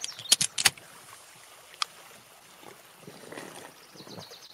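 Drink sound effects from a beer-style commercial: a few sharp clicks in the first second, like a drink can being handled and opened, then faint trickling, gurgling liquid as the drink is poured or swallowed.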